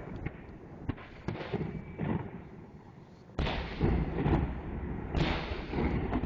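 Aerial fireworks shells bursting. There are a few sharp cracks in the first two seconds, then a heavy boom about three and a half seconds in and another about five seconds in, each trailing off in long echoes.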